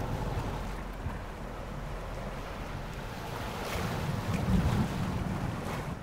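Ocean waves heard from underwater: a steady low, rumbling wash that swells louder about two-thirds of the way through.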